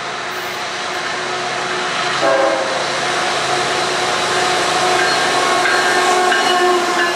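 A train approaching and passing, its rumble growing louder, with a horn sounding from about two seconds in and holding on.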